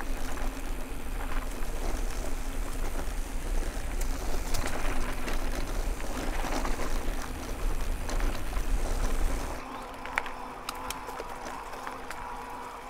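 Wind rushing over the microphone and tyres rolling on a fast downhill run on an e-mountain bike, with scattered clicks and rattles from the trail. About nine and a half seconds in, the wind rumble drops off as the bike slows, leaving a quieter rolling sound with a faint steady hum and sharp clicks.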